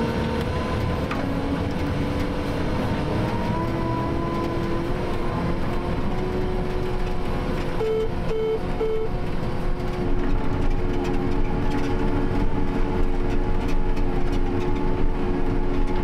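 Self-propelled crop sprayer running steadily while spraying, heard from inside its cab, with a steady drone and whine. Three short beeps sound about halfway through, and the running noise gets louder a couple of seconds later.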